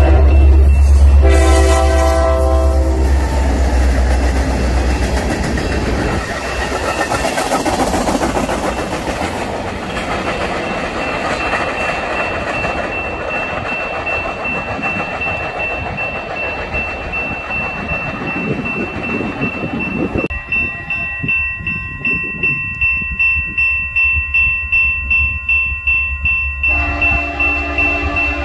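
A diesel locomotive's horn sounds two blasts over its engine rumble as a Union Pacific local passes, then the rumble fades and the train's freight cars roll by with a steady rail noise. About 20 seconds in, a grade-crossing bell starts ringing about twice a second. Near the end, the locomotive of an approaching loaded coal train sounds its horn.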